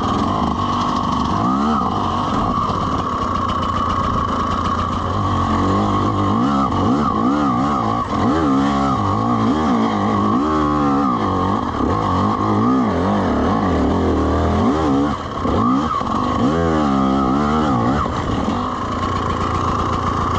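A TM EN300 two-stroke dirt bike engine being ridden, its revs rising and falling again and again with the throttle. The revving is strongest in the middle of the stretch, over a steady high drone.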